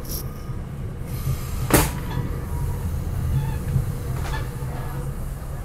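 Steady low rumble inside a SEPTA Regional Rail push-pull coach, with a sharp clunk a little under two seconds in and a lighter knock about four seconds in.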